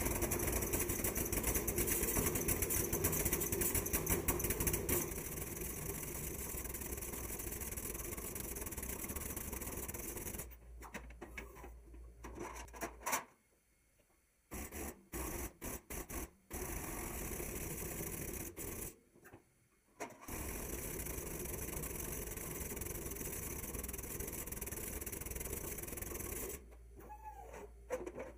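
Air-over-hydraulic bottle jacks on a homemade press brake pumping with a steady mechanical chatter while bending a sheet-steel bumper part. The noise cuts off abruptly a couple of times and then resumes.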